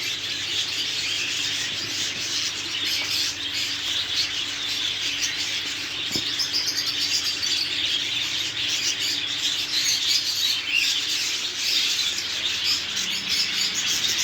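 Many small caged birds chirping and chattering together in a dense, continuous chorus, with occasional wing flutters.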